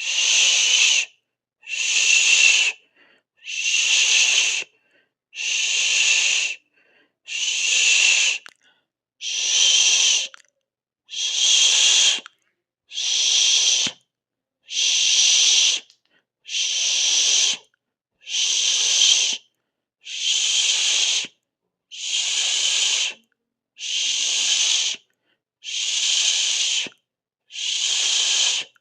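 A person's mouth hissing, a sibilant 'sss', in repeated bursts about a second long, about one every two seconds, with silence between.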